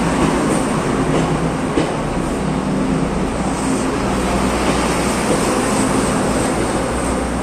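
Taiwan Railways DRC1000 diesel multiple unit moving slowly past at close range: a steady rumble of its diesel engines and wheels on the rails.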